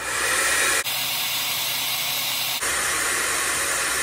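Electric heat gun running, a steady rushing hiss of blown hot air aimed at a battery's bimetallic high-temperature thermal switch to make it trip. The sound changes abruptly twice, about one and two and a half seconds in.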